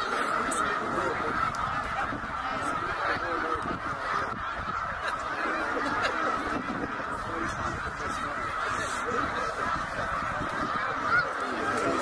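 A huge flock of snow geese calling all at once: thousands of overlapping honks blend into a steady, unbroken din.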